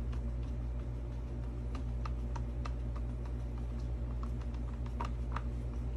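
A stir stick tapping and clicking irregularly against the sides of a mixing cup as epoxy resin is stirred, over a steady low hum.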